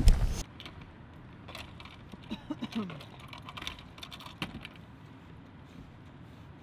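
A brief burst of wind and handling noise on the microphone cuts off abruptly about half a second in. After it come faint, scattered clicks and taps, with a short low murmur in the middle.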